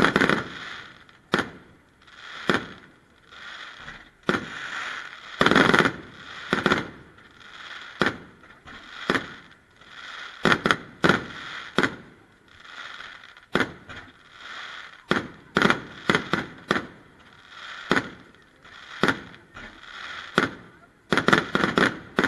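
Fireworks display: aerial shells bursting with sharp bangs about once a second, with a hiss swelling between them. The loudest moments are a quick cluster of bangs about five seconds in and another near the end.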